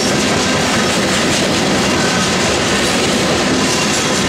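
Covered hopper cars of a grain train rolling past at steady speed, wheels clattering over the rail joints in a continuous loud rumble.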